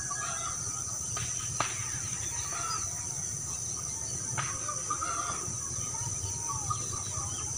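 Steady high-pitched insect drone, like crickets, with scattered short bird calls over a low rumble. Two sharp clicks come about one and a half and four and a half seconds in.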